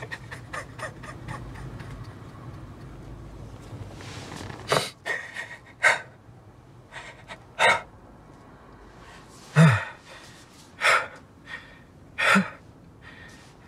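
A man sobbing: a run of sharp, gasping breaths about one to two seconds apart, starting about four seconds in, two of them with a short voiced cry. A low steady hum comes before the sobs.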